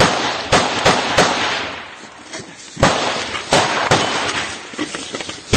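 Gunfire: about seven sharp shots at uneven spacing, with a short lull a little after two seconds in.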